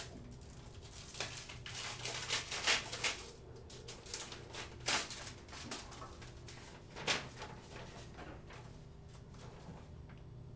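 Sheets of paper rustling and crinkling in the hands as letters are handled and leafed through, in several short spells with the loudest crackles about three, five and seven seconds in, over a steady low electrical hum.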